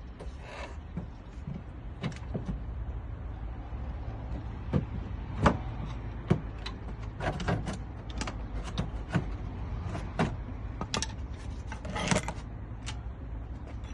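Irregular metallic clicks and knocks of tools and brake parts being handled, over a steady low hum.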